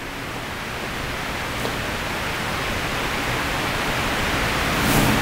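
Steady background hiss with no voice, growing gradually louder, with a slight step up near the end.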